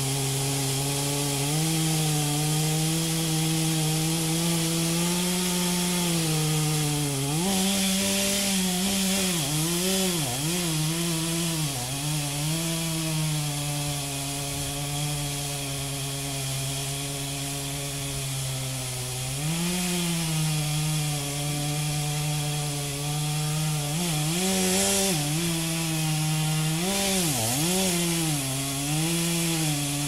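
Two-stroke chainsaw running at high speed in a felling cut through a large tree trunk. Its pitch holds steady for stretches, then dips and recovers again and again in two stretches as the chain bogs down in the wood.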